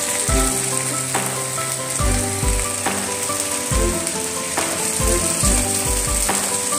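Background music with a steady bass beat, over the sizzle of chopped Napa cabbage being stir-fried in a hot pan.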